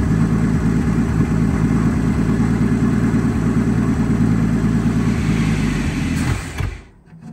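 1954 Dodge dually truck's engine running steadily, then dying away about six and a half seconds in.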